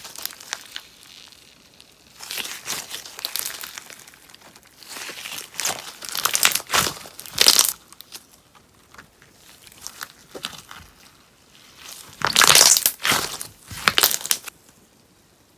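Sponge slime (slime packed with pieces of sponge) crackling and popping as it is worked, in three main bouts of dense crackle with quieter handling in between.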